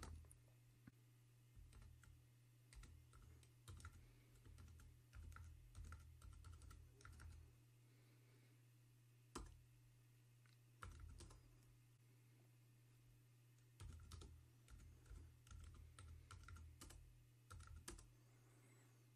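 Faint typing on a computer keyboard: short runs of keystrokes broken by pauses of a second or two, over a steady low hum.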